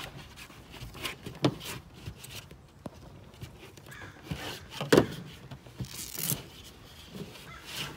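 Scattered clicks and knocks of scissors and adhesive tape being cut and handled, with the loudest knock about five seconds in.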